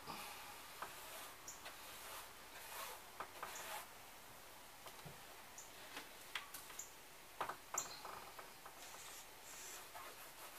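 A wren's short, high chips, one every second or so, with agitated calling. Faint scraping and clicking of hands working at an old window frame run underneath.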